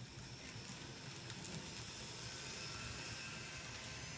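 N scale model freight train rolling past on the layout: a faint, steady hiss of small wheels on the rails with a thin motor whine, growing a little louder in the first second as the cars come close.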